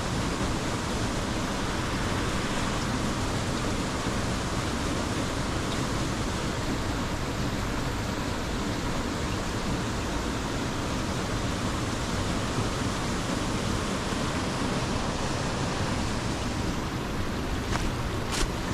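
Waterfalls rushing steadily in a canyon, a constant even wash of falling water, with a couple of sharp clicks near the end.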